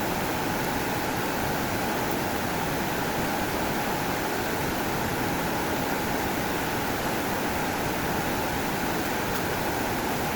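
Steady rushing of running water, like a stream or small waterfall.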